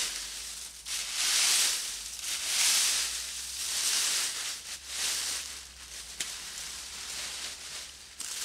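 Dry leaves being raked into a plastic lawn bag: a crunching rustle in about four strokes, roughly one every second and a quarter, followed by quieter rustling.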